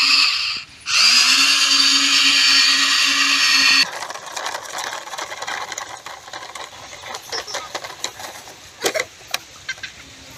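Electric motors and gearboxes of a Huina radio-controlled toy excavator whining steadily, dropping out briefly just under a second in and cutting off at about four seconds. After that there is quieter outdoor rustling with a few light knocks.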